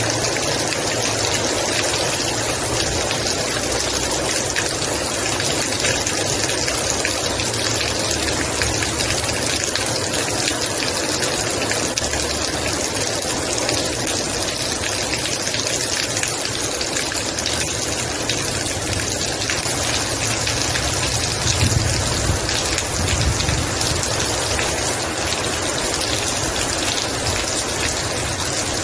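Heavy rain pouring steadily, a dense even hiss. A low rumble swells briefly about three-quarters of the way through.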